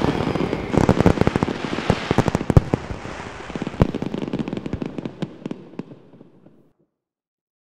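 Fireworks display: a rapid run of bangs and crackles that thins out and fades away, dying out about six and a half seconds in.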